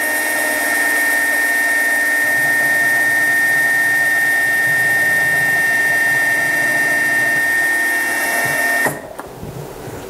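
Benchtop mini mill spindle running with a steady high whine while a center drill cuts a starting hole in a brass pulley; the spindle stops about nine seconds in.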